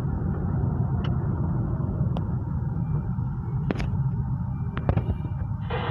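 Steady low rumble of a car's engine and road noise heard from inside the cabin, with a few faint clicks.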